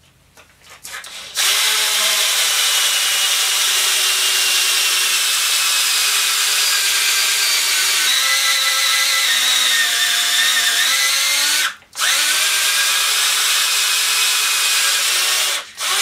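Black & Decker Matrix 20-volt cordless drill boring into wood. Its motor whine sinks slowly under load. It stops for a moment about twelve seconds in, then drills on until just before the end.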